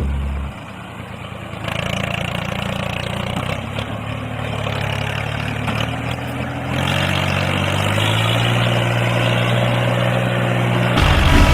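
A motor or engine running steadily, its pitch and level shifting abruptly a few times.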